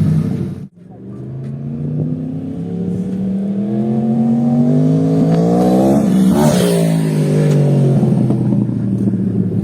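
Yamaha R1's crossplane-crank inline-four with a titanium Two Brothers full exhaust, pulling with its pitch rising steadily for several seconds, then dropping sharply as it passes by about six seconds in, and running on at a steady pitch.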